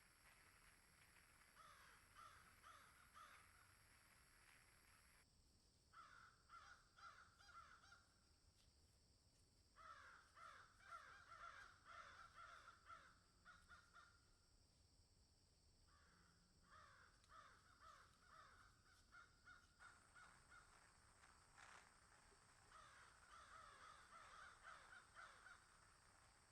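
Faint animal calls, short and quickly repeated, coming in clusters of a few seconds with pauses between them, over near silence.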